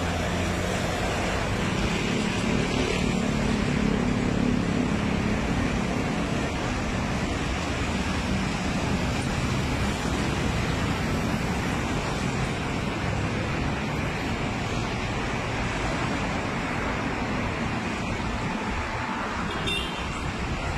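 Steady roadway traffic noise, with a low engine hum that is strongest in the first half.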